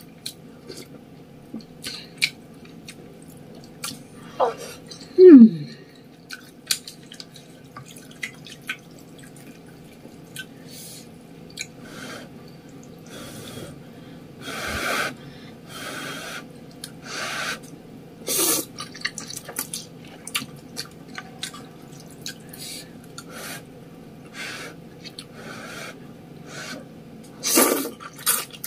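Close-miked eating of spicy ramen noodles: wet chewing and mouth clicks, with loud slurps of noodles and broth. The loudest come about five seconds in, and more near the end.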